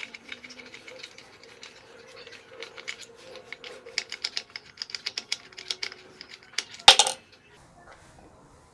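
Small clicks, taps and rattles of a screwdriver and plastic parts as an old wall socket is unscrewed and taken off the wall, with one loud sharp knock about seven seconds in.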